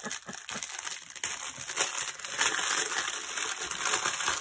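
Small clear plastic bags of diamond painting drills crinkling and rustling as they are handled and opened, getting louder and denser about a second in.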